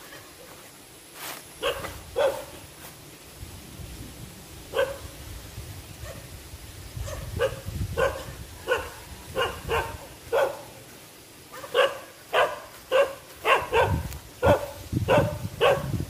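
Feral dogs barking: single barks spaced a second or more apart at first, then a quicker run of about two barks a second over the last few seconds.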